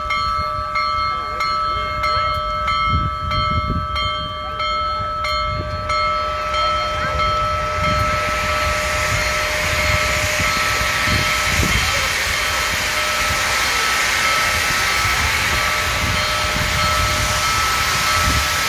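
Union Pacific Big Boy No. 4014 steam locomotive letting off steam: a loud hiss that builds from about six seconds in and then holds steady. Before it, a bell rings at an even beat, stopping about six seconds in.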